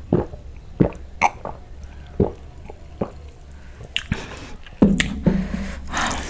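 Close-miked swallowing of cola from a glass: several sharp gulps about a second apart, then wet mouth sounds. A louder wet cluster about five seconds in carries a short low throaty sound.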